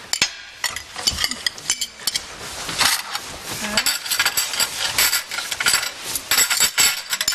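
Chopsticks and plates clinking and tapping as several people eat dumplings, a busy scatter of small clicks.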